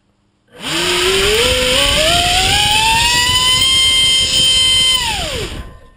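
Turnigy SK3 Fandrive 3659-1900kv brushless inrunner motor spinning a 6.5x6.5 speed propeller on a 6-cell LiPo. About half a second in it winds up with a rising whine over a rush of prop wash, holds a steady high whine at full throttle while drawing about 138 amps, then spools down quickly and stops near the end.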